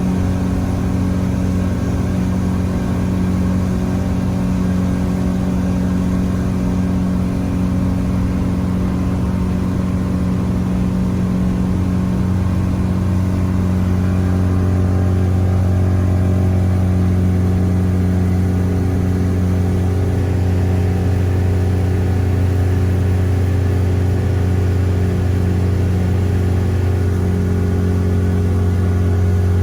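A tour boat's motor running steadily underway, a loud even engine drone whose low hum grows stronger about twelve seconds in.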